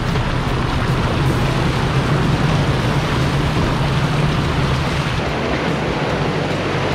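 Vehicle driving on the trail: a steady low engine drone under a continuous rushing of tyre and wind noise.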